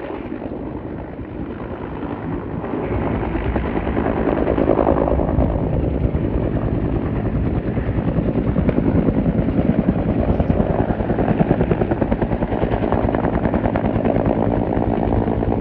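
Helicopter rotor beating in a steady rapid pulse, growing louder over the first few seconds and staying loud as the aircraft comes close.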